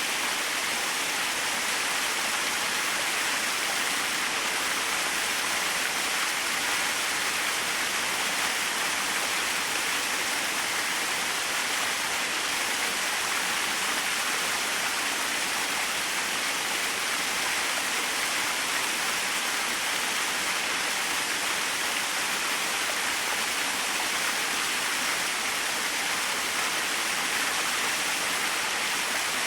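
Small waterfall splashing and rushing steadily, an even hiss of falling water with no change.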